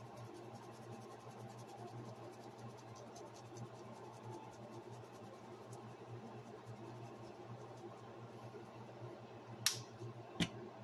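Lemon pepper seasoning shaken from its bottle over raw beef neck bones: a faint, rapid rattle of grains over a low steady hum. Near the end, two sharp clicks less than a second apart as the seasoning bottles are handled.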